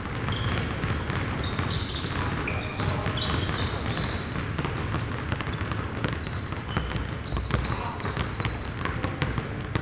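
Several basketballs being dribbled on a gym court: many overlapping bounces, with short high sneaker squeaks among them.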